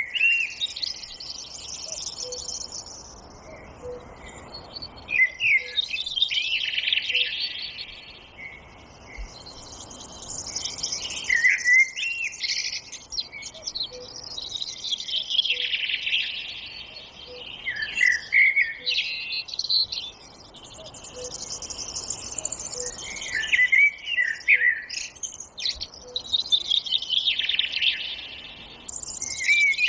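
Forest songbirds singing: bursts of quick chirps and trills that come back about every six seconds, with a faint low note repeating every second or two underneath.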